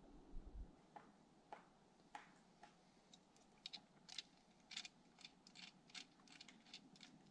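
Near silence broken by faint, irregular small clicks, a few at first and then coming faster and sharper from about three seconds in.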